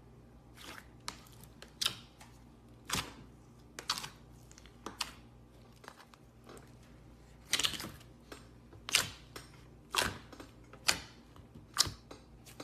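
Clear slime being squeezed and pressed, giving a run of short, sharp pops and clicks about once a second, some louder than others.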